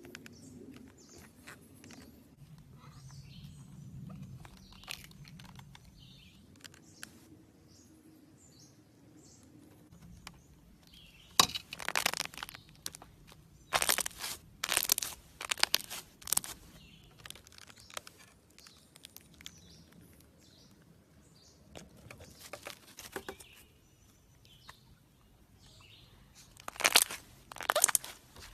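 Slime being pressed by hand, giving clusters of sharp crackling pops and clicks. It is fainter in the first ten seconds, busiest from about eleven to sixteen seconds in, and crackles again near the end.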